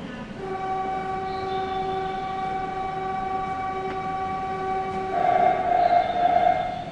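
Running sound aboard a Nagoya Municipal Subway 2000 series train: a steady whine of several unchanging tones over a low rumble, starting about half a second in, growing louder and rougher about five seconds in, and dropping away near the end.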